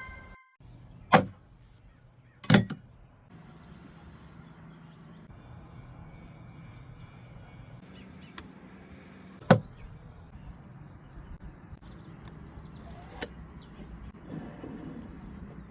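Four sharp knocks spaced unevenly a few seconds apart, the first two the loudest, over a faint steady hum.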